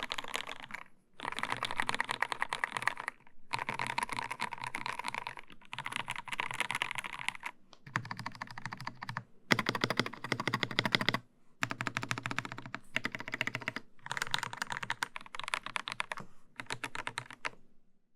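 Fast typing on a Dark Project x AKKO 5075 mechanical keyboard with lubed g3ms Sapphire switches, a polycarbonate plate and CSA PBT doubleshot keycaps. Quick runs of key clacks come in bursts of one to two seconds with brief pauses between them, and the typing stops just before the end.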